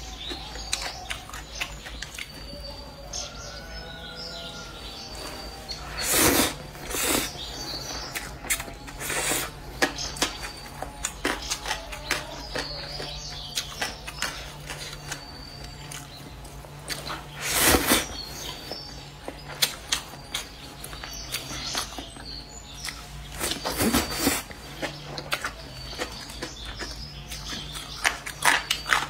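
Close-up eating sounds: stir-fried rice noodles slurped in about four loud bursts, with chewing and many small mouth and chopstick clicks between them.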